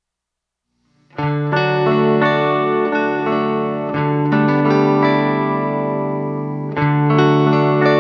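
Dead silence, then about a second in, instrumental background music starts: guitar with effects playing sustained chords that change twice.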